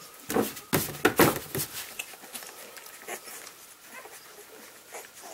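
English Springer Spaniel puppies, 11 days old, nursing on their mother, with faint small squeaks and nursing noises. About half a second in comes a burst of rustling and bumps lasting a second and a half, the loudest part.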